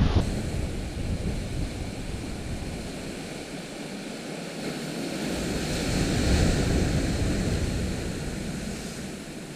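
Sea surf washing onto the shore, a wave swelling to its loudest about six seconds in and then falling away, with gusts of wind on the microphone.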